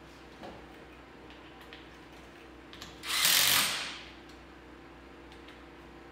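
A cordless power driver runs once for about a second, about three seconds in, tightening a push-through traction stud into a snowmobile track. A few faint clicks come before and after it.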